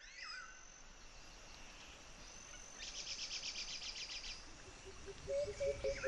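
Rainforest ambience fading in: birds calling in quick sweeping notes, a steady high insect buzz, a fast trill for about a second and a half around the middle, and low pulsing calls at about five a second starting near the end.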